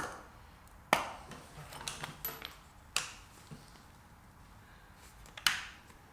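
Sharp metallic clicks and clacks from handling a CZ 527 bolt-action rifle, spaced a second or two apart, with a short rattle around two seconds in and the loudest clack near the end.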